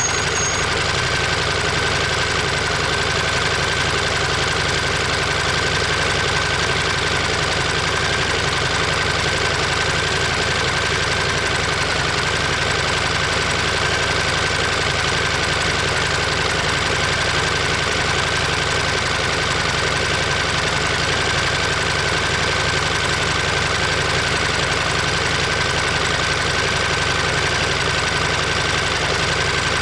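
Ducati Monster 1200S L-twin engine and exhaust running steadily, with no revving, picked up by a microphone mounted near the muffler.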